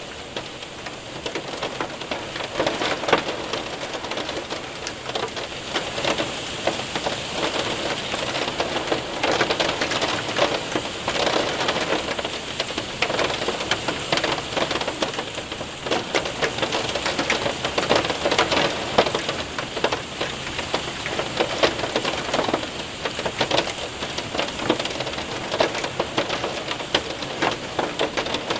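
Hail and rain hitting a window and roof: a steady patter dense with sharp little ticks and clicks of hailstones, swelling and easing in waves.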